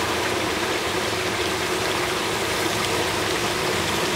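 Steady sizzling hiss of a catfish stir-fry in a wok over a gas burner.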